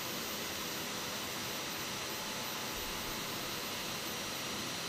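Vacuum cleaner running steadily, its hose nozzle held at a CNC router's milling bit to suck up chips: an even hiss with faint steady high-pitched tones.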